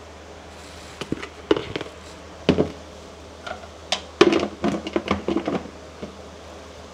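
Plastic kitchenware being handled: a spoon knocking and scraping in a plastic flour tub and a plastic mixing bowl, then a quick run of clacks as the tub's plastic lid is fitted on.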